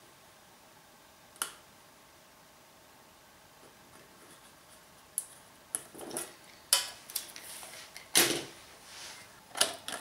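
Hands handling a thin sheet-metal 5-litre beer keg: a single sharp click about a second and a half in, then a run of clicks, light metallic knocks and short scrapes through the second half.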